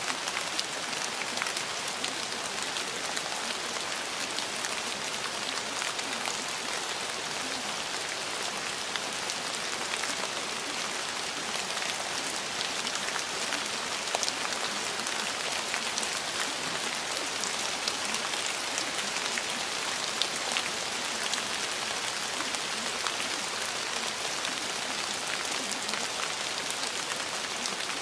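Steady rain: an even hiss with many small drop ticks.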